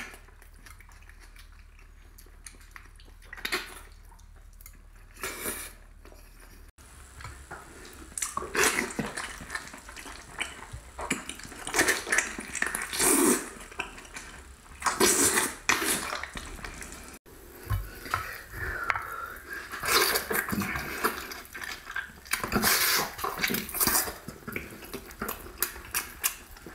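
Close-miked eating sounds: a man biting, chewing, lip-smacking and sucking on braised pig's trotters in sauce, in irregular bursts. It is sparse for the first few seconds and busier after.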